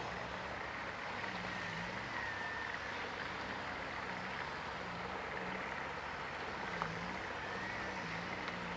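Steady outdoor background: an even hiss with faint, low wavering calls recurring every second or so and a thin high whistle.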